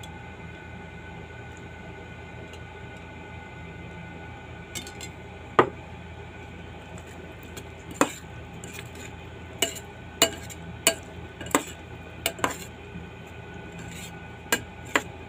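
A spoon knocking and clinking against a ceramic salad bowl as chopped vegetables are tossed with dressing. One sharp clink comes a few seconds in, another a little later, then a quicker run of clinks over the last six seconds.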